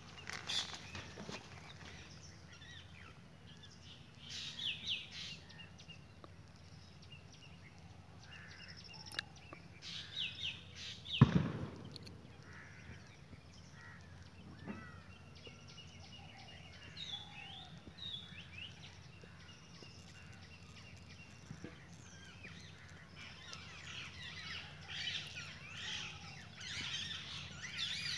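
Small birds chirping and trilling in scattered short calls, growing busier near the end, over a steady low outdoor background. One loud sudden thump about eleven seconds in.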